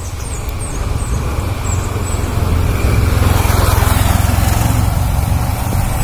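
Wind rumbling on the microphone and tyre noise from a motorcycle coasting downhill with its engine switched off. It grows louder about halfway through as the bike gathers speed.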